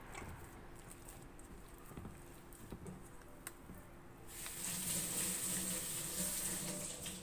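Soft squishing and patting of hands kneading gram-flour dough in a steel bowl. About four seconds in, a louder steady hiss with a low hum comes in and stops near the end.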